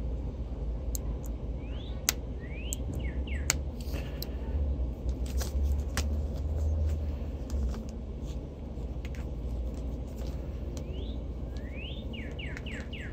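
Small birds chirping in short quick sweeping calls, one bout a couple of seconds in and another near the end, over a steady low rumble and scattered sharp clicks.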